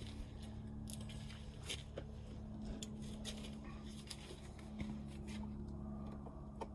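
Scattered light clicks and knocks of hands and tools handling a plastic storage box, over a steady low hum.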